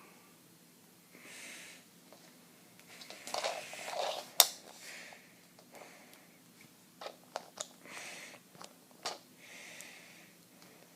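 Soft breaths close to the microphone every two to three seconds, with rustling and a run of small clicks from handling stickers and a small plastic toy car, one sharp click about four seconds in.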